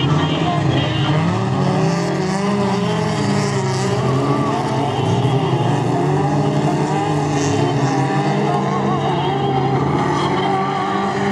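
Several autocross race cars' engines running hard together, their overlapping tones rising and falling in pitch as the cars accelerate and lift off.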